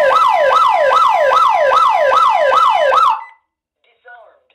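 Honeywell 702 external electronic siren sounding a panic alarm: a loud, fast warbling tone that sweeps up and down about three times a second. It cuts off about three seconds in when the alarm is silenced, and faint keypad beeps follow near the end.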